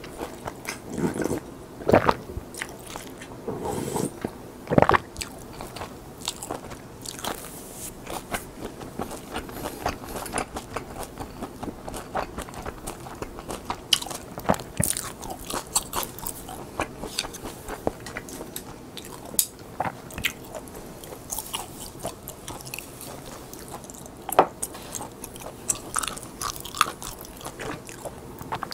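Close-miked crunching of crisp seasoned seaweed sheets (gim) being bitten and chewed: a steady run of sharp crackles, with a few louder bites.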